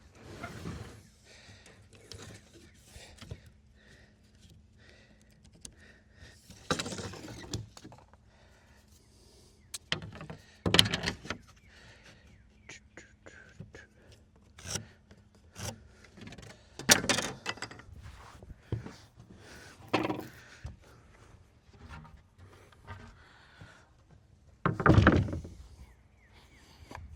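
Irregular wooden thunks and scrapes, about every few seconds, of lumber being handled and knocked into place while decking a shed floor.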